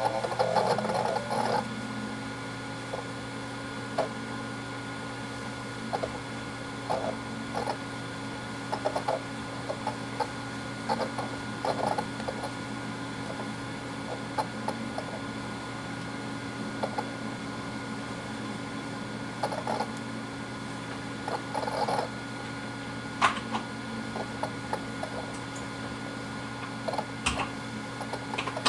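Western Digital Black 4 TB (WD4004FZWX) 7200 rpm hard drives running: a steady hum, with scattered clicks and short bursts of head-seek chatter. A louder burst of activity comes right at the start, and a tone rises over the first two seconds and then holds steady.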